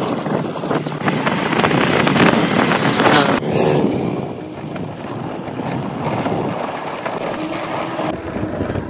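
Motorbike engine running on the move, with wind buffeting the microphone.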